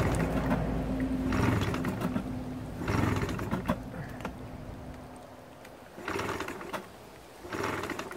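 Old 15 hp outboard motor running on a cold start, its steady note fading and dying away about five seconds in. Short noisy bursts follow about every one and a half seconds.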